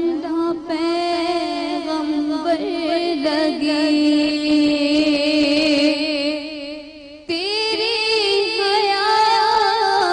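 A woman singing a slow devotional song into a microphone, holding long notes that waver and turn. One phrase ends about seven seconds in and the next begins straight away.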